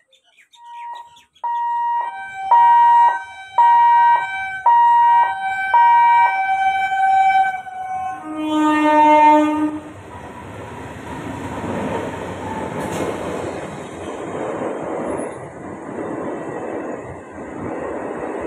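An approaching train's two-tone horn, alternating high and low notes about once a second for several seconds, then a louder, fuller horn blast. The train then rumbles past over the rails.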